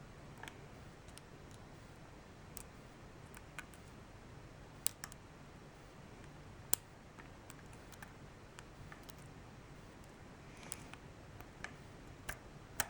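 Lock pick and tension wrench working the pins of a pin-tumbler challenge lock with security pins: sparse, faint clicks and ticks as the pick probes for an unset pin, with one sharper click about seven seconds in.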